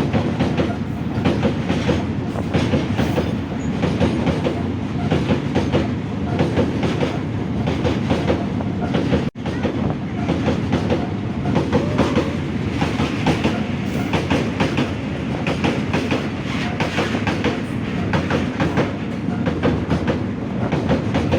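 Train rolling past close by, its wheels clattering over the rails in a steady loud rumble with dense rapid clicks. The sound drops out for a moment about nine seconds in.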